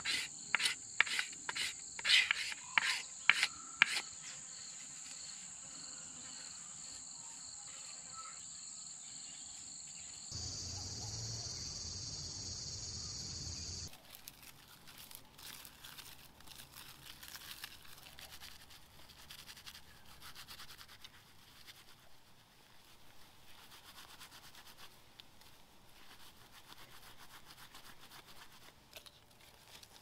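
Leatherman knife blade scraping along a wooden stick in a quick run of sharp strokes for the first few seconds, over insects shrilling steadily. After about fourteen seconds the scraping gives way to quieter rubbing and rustling of plant material in the hands.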